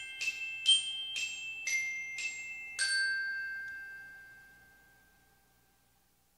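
Short bright glockenspiel-style jingle: a run of struck bell-like notes, about two a second, ending on a final note about three seconds in that rings out and slowly fades away.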